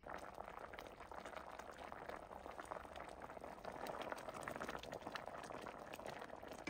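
Fish curry in coconut milk boiling in a metal pot: a steady stream of bubbling and small pops as the coconut-milk gravy is brought to the boil.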